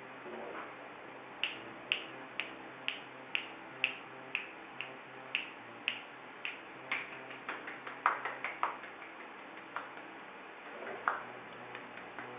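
A person snapping their fingers, sharp single snaps about two a second, then a quicker uneven run of snaps, and a few more near the end.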